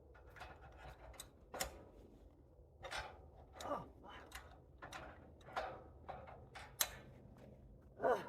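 Scattered light clicks and knocks at irregular intervals, with a few faint snatches of voice.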